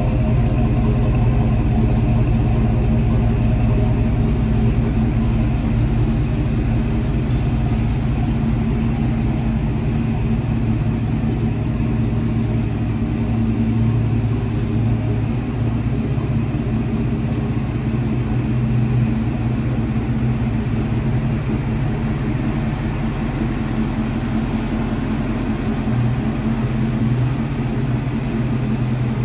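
1978 Ford F-150's 460 cubic-inch big-block V8 idling steadily.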